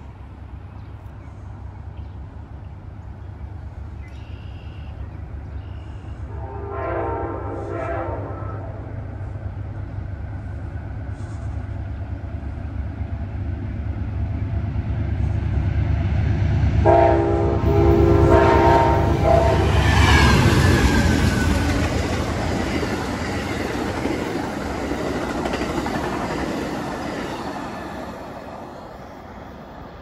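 Amtrak passenger train pulled by three GE P42DC diesel locomotives, approaching with a rising engine rumble. Its horn sounds a chord about six seconds in and again, longer and louder, at around seventeen seconds. The train then passes with wheels clattering over the rails, and the sound fades as it goes away.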